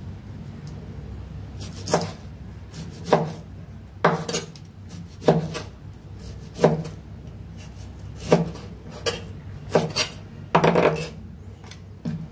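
Kitchen knife slicing boiled wild boar meat on a wooden cutting board, each cut ending in a sharp knock of the blade on the board. About ten cuts, roughly one a second, starting about two seconds in.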